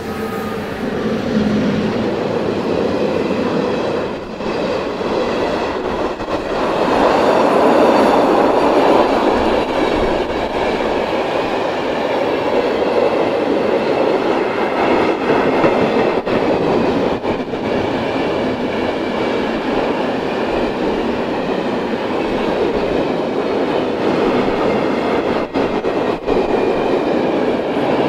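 Electric-hauled freight train passing close by: an ÖBB class 1144 electric locomotive, then a long string of loaded car-carrier wagons, making a steady loud rumble of steel wheels on rail with faint high-pitched wheel squeal above it.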